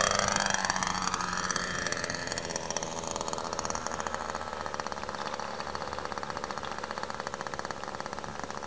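Small engine of a radio-controlled model flying saucer. Its pitch falls over the first two or three seconds as it passes low and comes down to the runway, then it runs steadily and slowly fades.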